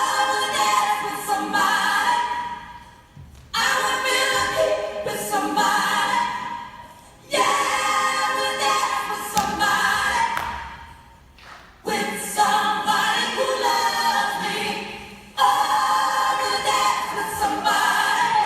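Voices singing together without instruments, in phrases that start suddenly and fade away every three to four seconds.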